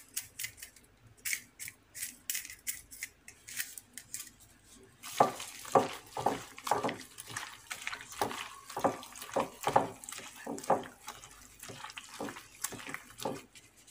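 Wet squishing of raw squid pieces being squeezed and mixed with egg and salt by a plastic-gloved hand in a glass bowl. Light clicks at first, then denser, steady squelching from about five seconds in, stopping near the end.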